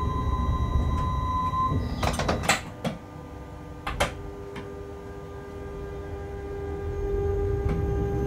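Locomotive running, heard from inside the cab: a low rumble with steady electrical whine tones, then a handful of sharp clicks and clacks about two to four seconds in. After them the running noise drops and slowly builds again.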